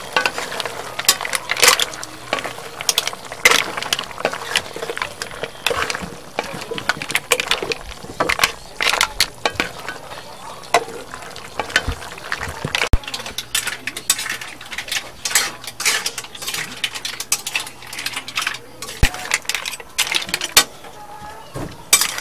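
A spatula stirring mussels, shrimp and sweet-corn chunks in a metal wok, with irregular clinks and scrapes of the spatula and shells against the pan.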